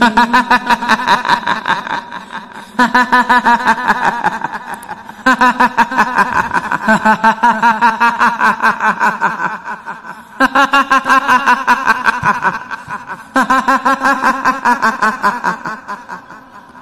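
A woman's cackling laugh, the horror-effect laughter of a kuntilanak ghost, in five rapid bouts, each trailing off before the next starts.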